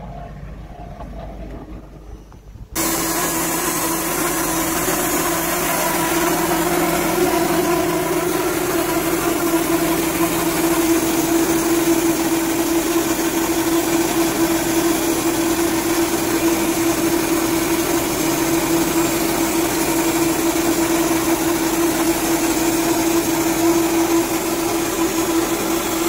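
KP Forsttechnik PT-130 band sawmill cutting through a log: a loud, steady whine over a dense hiss of blade and sawdust. It starts abruptly about three seconds in after a quieter lead-in, then holds steady.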